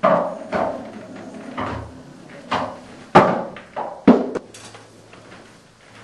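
Pool balls knocking on a pool table: a run of about eight sharp, irregular clacks, each with a short ringing tail, as the cue strikes and the balls hit each other and the cushions.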